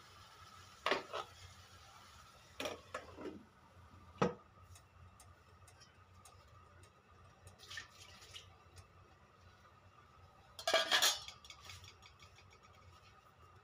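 Metal and glass cookware clinking: a utensil knocking against a stainless steel pot and a glass lid being set on it. Scattered sharp knocks and clinks, with the loudest cluster about eleven seconds in.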